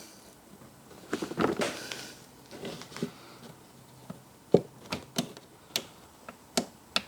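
Gear shift mechanism of a 1990 Kawasaki ZZR1100 engine being worked by hand on the bench: a shuffling rattle of parts, then a run of short sharp clicks from about halfway in as the shift mechanism is clicked through in both directions.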